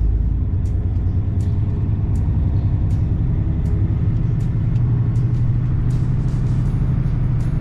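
Semi-truck engine and road noise heard from inside the cab: a steady low drone that shifts in pitch about four seconds in, with scattered sharp ticks over it.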